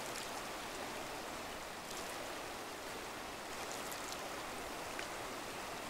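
River water running steadily, an even noise with a few faint ticks or small splashes.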